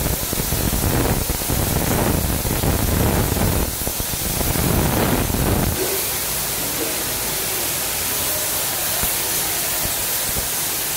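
Compressed-air spray gun hissing steadily as it sprays glaze onto a ceramic wash basin. A low rumble runs under the hiss and stops about six seconds in.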